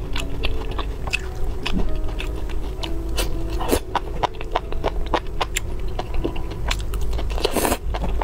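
Close-up chewing of fatty beef slices rolled around enoki mushrooms in sauce: a steady run of many sharp crunching clicks.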